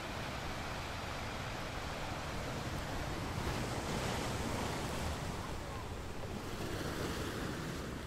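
Ocean surf: waves breaking and washing over the shore as a steady rush of water that swells to its loudest about halfway through, then eases.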